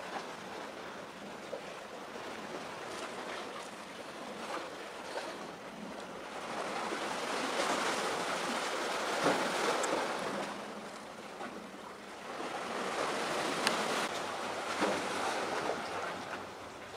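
Sea waves washing in, a continuous hiss of water that swells up twice for a few seconds each.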